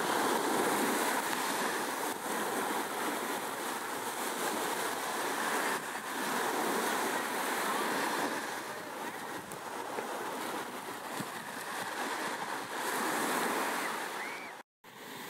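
A steady rushing noise like surf washing in, rising and falling in loudness, that cuts out for a moment near the end.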